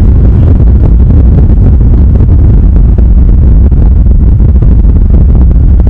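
Strong wind buffeting the camera's microphone: a loud, steady low rumble that drowns out everything else.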